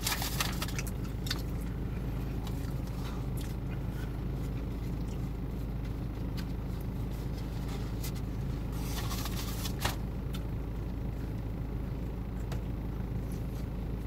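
Steady low hum of the car's idling engine, heard from inside the cabin. A few brief rustles and a sharp click about ten seconds in are mixed over it.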